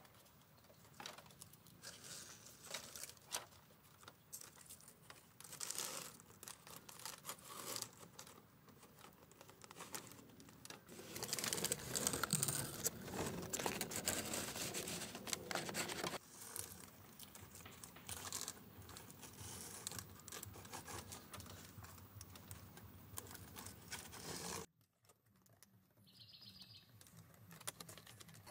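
Irregular rustling, crackling and light tapping, louder for about five seconds in the middle, then cutting off abruptly; a brief bird trill follows near the end.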